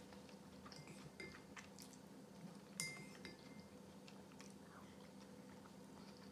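A spoon clinks against a ceramic soup bowl a few times. The loudest clink, about three seconds in, rings briefly. Faint chewing comes between the clinks.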